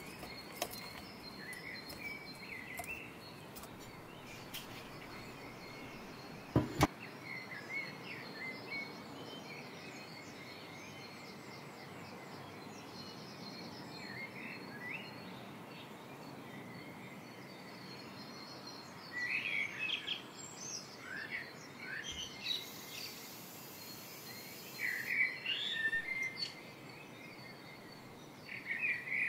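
Outdoor ambience recording of small birds chirping in scattered short calls over a steady background hiss, with denser bursts of chirping in the second half. There is one sharp click about seven seconds in.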